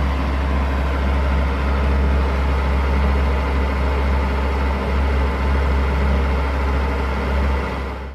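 Mercedes-Benz SL600's twin-turbo V12 idling steadily with a low, even hum, fading out near the end.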